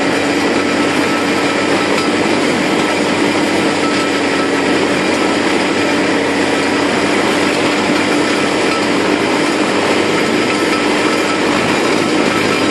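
GROWI Uni three-point slurry mixer driven from a tractor's power take-off, running steadily at working speed while it churns liquid manure in an open pit. Steady mechanical noise with a constant hum.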